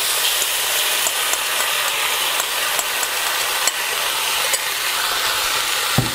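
Chili crab sauce sizzling in a hot oiled wok of stir-fried crab: the hiss starts suddenly as the sauce goes in and holds steady, with scattered small spatter pops. A low knock near the end.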